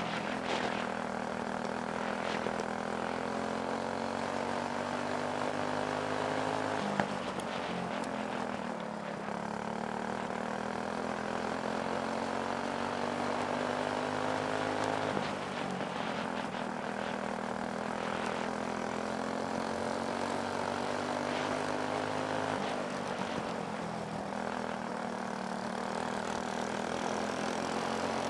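Racing kart's Briggs & Stratton Animal single-cylinder four-stroke engine, heard on board, pulling hard around a dirt oval. Its pitch drops as the kart enters each turn, then climbs steadily back on the straight, about every seven or eight seconds.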